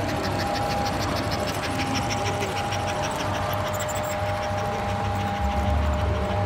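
Electric model passenger train running along the track, its motor giving a steady hum over a low rumble. A fast, even clicking of the wheels over the rail joints, about five clicks a second, fades out about two-thirds of the way through.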